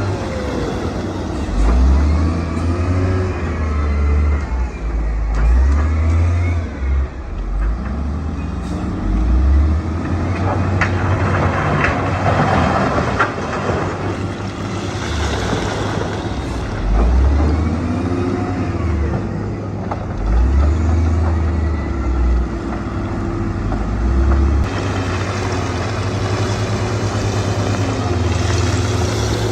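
Heavy diesel earthmoving machinery working: a deep engine sound that swells and eases every few seconds as it revs under load.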